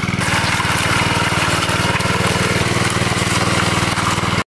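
Small single-cylinder petrol engine of a concrete power trowel running steadily at a fast, even beat, cutting off suddenly near the end.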